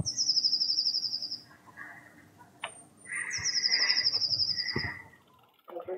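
A small songbird singing twice: each phrase is a couple of very high, short notes followed by a fast, high trill lasting about a second and a half.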